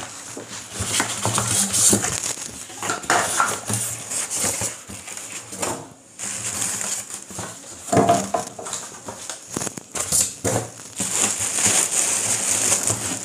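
Plastic wrapping crinkling and rustling as it is handled, with cardboard box flaps and packing pieces rubbing and knocking in irregular bursts of handling noise.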